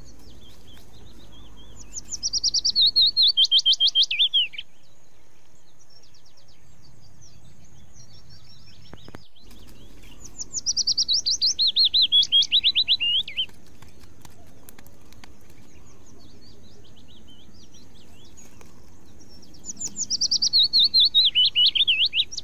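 A songbird singing three times, each song a quick run of a dozen or so sharp notes stepping down in pitch over about two and a half seconds, the songs about nine seconds apart. A faint steady high tone sits underneath.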